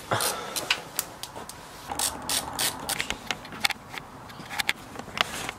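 Irregular sharp clicks and small rattles of plastic headlight parts being twisted and unscrewed by hand.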